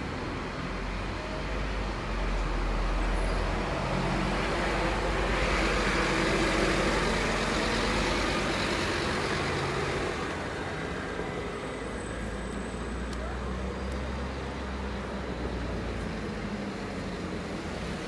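Street traffic: a road vehicle passes, its noise swelling over several seconds and then fading, over a steady low rumble.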